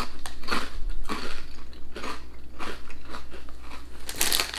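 Crunchy baked potato crisps being bitten and chewed, a string of sharp crunches about two or three a second. Near the end, a denser crackle as a hand rummages in the foil crisp bag.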